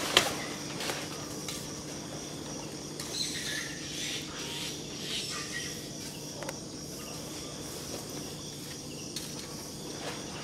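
Steady insect drone with scattered short chirps over it. A sharp click just after the start is the loudest sound.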